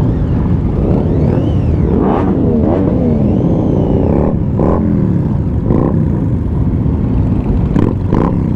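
Motorcycle engines, the rider's Triumph Daytona 675 among a group of bikes, revving up and down at low speed over a steady low rumble, heard through a helmet camera. A few short knocks come through.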